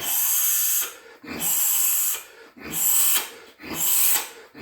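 Loud, rhythmic hissing breaths, one roughly every second, each opening with a short low thud.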